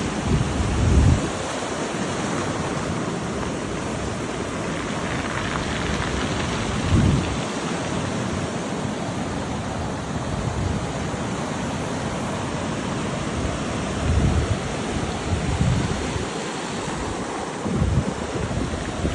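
Sea waves washing over a pebble beach: a steady hiss of water and rattling stones, broken about five times by short low rumbles as waves break or gusts hit.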